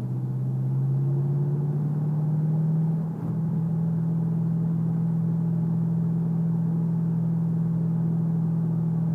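2014 Shelby GT500's supercharged 5.8-litre V8 running under way: the engine note rises slowly for about three seconds, dips briefly, then holds steady.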